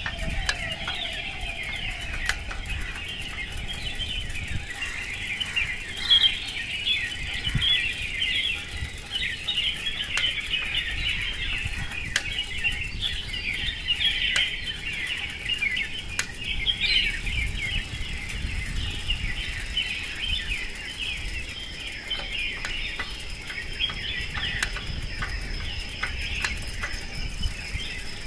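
Dawn chorus: many birds chirping and twittering at once in a dense, continuous mass of short high notes, over a low rumble. A thin, steady high tone joins a little past halfway.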